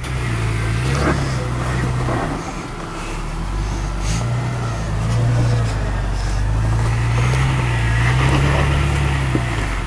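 Lifted 2001 Jeep Cherokee XJ's engine running at low revs, rising and falling in slow swells as it crawls over rock ledges. A couple of sharp knocks come about a second in and about four seconds in.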